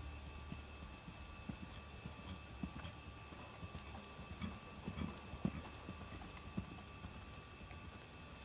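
Hoofbeats of a pony moving on arena sand: dull, irregular thuds, loudest a little past the middle.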